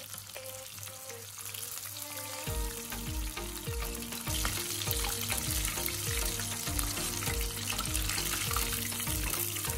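Tempura-battered prawns deep-frying in hot oil: a steady sizzle and crackle that grows louder about four seconds in. Background music with a repeating bass beat comes in about two and a half seconds in.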